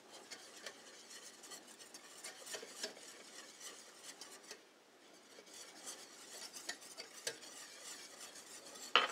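A whisk stirring and scraping flour into melted butter in a copper saucepan, working it into a roux: soft, irregular scraping with small clicks, pausing briefly about halfway. A sharp knock right at the end.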